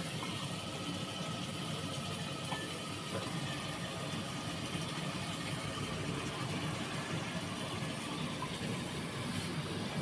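Gas stove burner flame running steadily under a metal pot, a low even rumble, with a few faint taps as raw chicken pieces are dropped into the pot.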